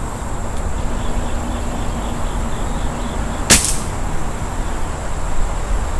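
A single shot from a Beeman R7 spring-piston air rifle about three and a half seconds in: one sharp crack, ringing briefly.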